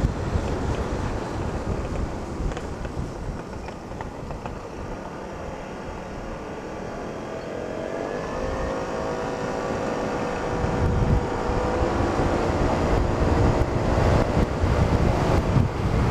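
Scooter engine and wind buffeting on a helmet-mounted microphone while riding. The engine is faint under wind and road noise at first, then from about halfway its hum climbs slowly in pitch as the scooter speeds up, and the wind rumble grows louder.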